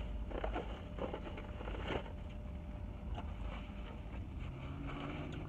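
Paper takeout bag rustling and crinkling in short bursts as food is handled, over a steady low rumble of background noise.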